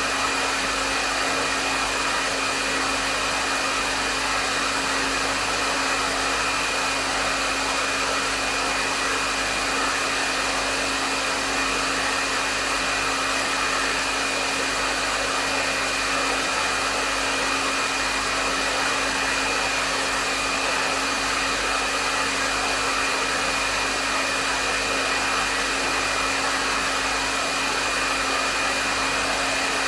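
Hair dryer running steadily, a constant rush of air with a steady whine from its motor.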